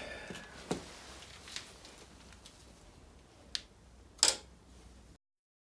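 A few light metallic clicks and taps from bearing parts and a pressing adapter being handled at a hydraulic shop press, with a louder double clank about four seconds in. The sound cuts out just before the end.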